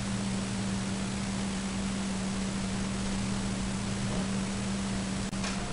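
Steady hiss with a low, constant hum underneath: the recording's own background noise, with no clear event. A faint click near the end.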